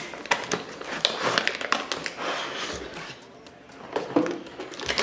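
A cardboard box being opened by hand and its clear plastic tray slid out: rustling and scraping of card and plastic with a string of light taps and clicks, quieter for a moment about three seconds in.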